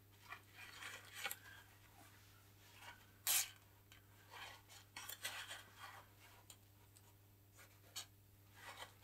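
Paper towel rustling and crinkling in the hands as it is handled around a syringe, in short scattered rustles with one louder crinkle about three seconds in. A faint steady low hum sits underneath.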